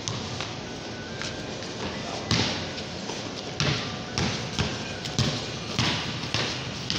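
A ball bouncing repeatedly on concrete, each bounce a sharp thud. The bounces start about two seconds in and come irregularly, roughly every half second to second.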